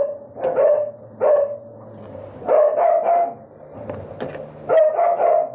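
A dog barking repeatedly in short clusters of two or three barks, with brief pauses between them.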